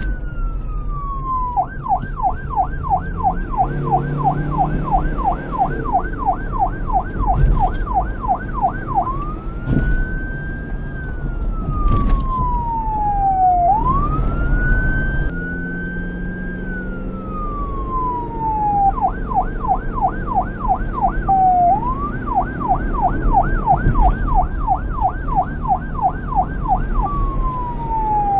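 Police car's electronic siren switching between a slow wail, rising and falling over a few seconds, and a fast yelp of about three sweeps a second, over a low rumble.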